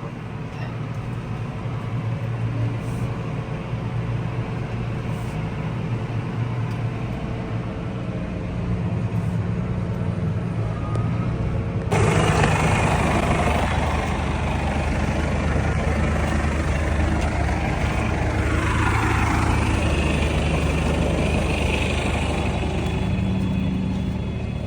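Tractor engine running steadily while pulling a Massey Ferguson RB 4160V round baler as it bales wet oats. About halfway through, the sound jumps abruptly to a louder mix with more hiss, and later a tone dips and rises in pitch.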